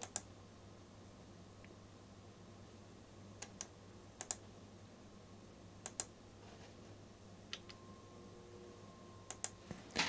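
Scattered clicks of computer keys and a mouse, a few at a time and often in quick pairs, over a faint steady hum.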